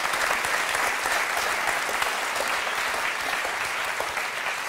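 Studio audience applauding, the clapping dying down slightly near the end.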